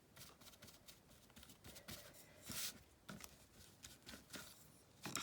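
Faint, irregular scratchy strokes of a paintbrush working thick paint onto fabric, with a slightly louder swish about two and a half seconds in.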